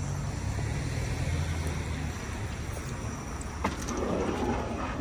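A car driving by in the parking lane, its engine a low steady rumble that eases after about two and a half seconds, with a sharp click near the end.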